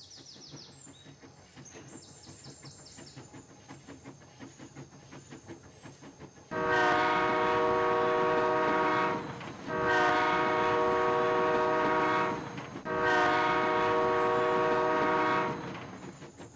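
Train sound effect: wheels clacking along the rails, then three long blasts of a multi-tone train whistle, each held for two to three seconds.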